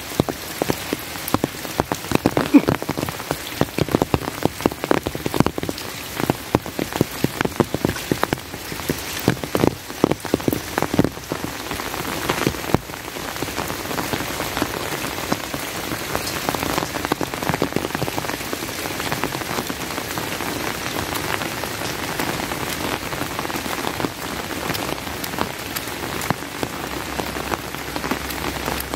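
Heavy rain falling, with many close, sharp drop hits for the first dozen seconds, then settling into a steadier, even hiss with fewer distinct drops.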